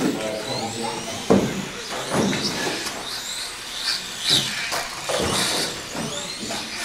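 Off-road radio-controlled cars racing: high motor whines rise and fall as they speed up and slow down, with several sharp knocks.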